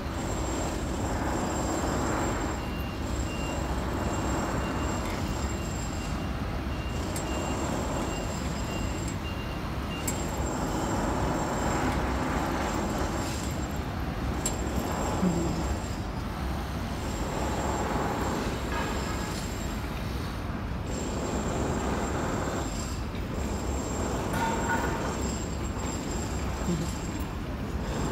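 Street traffic noise: a steady low rumble of passing road vehicles, swelling and easing every few seconds.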